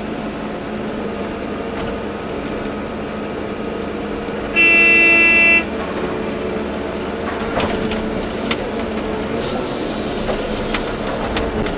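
Volvo EC240B excavator's diesel engine and hydraulics running steadily, with a wavering hydraulic pitch in the second half. A little under five seconds in, a horn sounds one loud blast lasting about a second.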